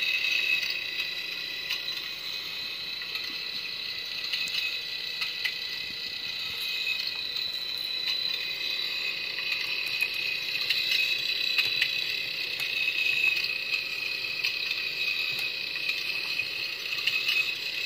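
Sound-effect module inside a B9 robot model playing the robot's circuitry sound: a steady high-pitched electronic hum with fast, scattered clicking.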